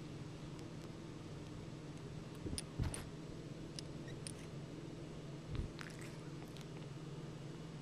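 A long-haired cat nuzzling and sniffing the camera up close. Its face and fur brush and bump against the camera, giving scattered small clicks and two soft bumps over a steady low hum.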